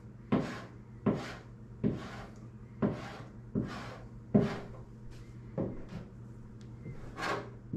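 A hand paint scraper drawn in short strokes across a sheet-steel truck door, lifting paint softened by citrus paint stripper. About six strokes come roughly three-quarters of a second apart, then two more with longer gaps, over a steady low hum.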